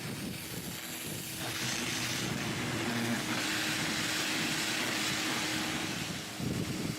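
Water spraying onto the bus body in a steady hiss that swells about a second and a half in and fades near the end, over a faint steady hum.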